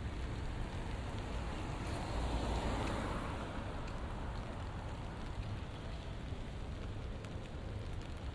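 Light rain falling on a wet city street, with a steady low traffic rumble. A car's tyres hiss past on the wet road, swelling and fading about two to three seconds in.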